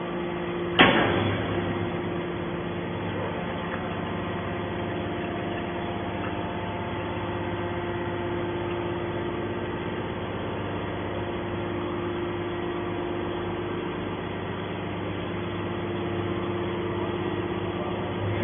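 Hydraulic scrap metal baler running with a steady hum. One sharp metal clank comes just under a second in.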